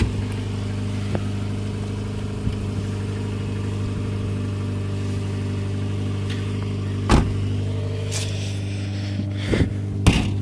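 Subaru Legacy's 2.2 flat-four engine idling steadily. Over it come a few sharp knocks and clunks from the worn driver's door being opened and moved, the loudest about seven seconds in and two more near the end.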